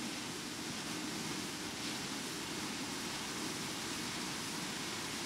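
Steady rushing noise of airflow over a small fixed-wing FPV plane, heard through its onboard camera in flight.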